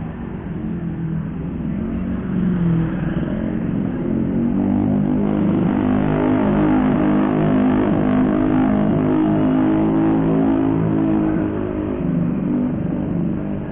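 Small motorbike engines running close by as motorbikes cross the street. The engine hum swells about two seconds in, stays loud through the middle and eases off near the end.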